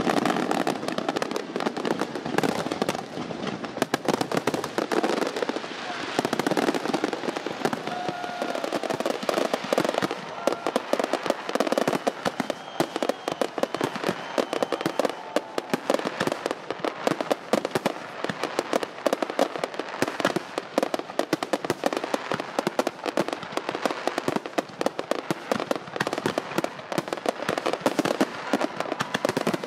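Fireworks going off continuously: a dense, unbroken crackle of many small pops and bangs, with no pause.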